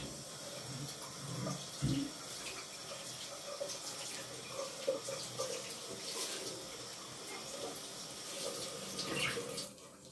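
Water running steadily from a tap into a sink, with a few light clicks, shut off suddenly near the end.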